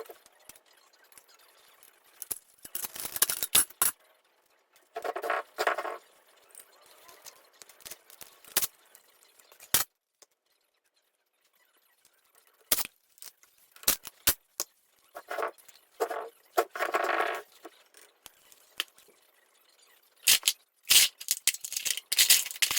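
Hand tools and metal engine parts being handled while dismantling a small engine's shrouding: scattered sharp clicks and clinks, with a few noisy bursts about a second long.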